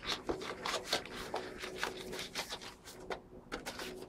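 Thin cardboard being rolled and handled into a funnel, giving a run of irregular rustling, scraping scuffs.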